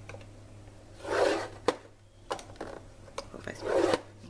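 A bone folder drawn along the groove of a paper-crafting score board, scoring card stock: two scraping strokes, one about a second in and one near the end, with a few light taps between.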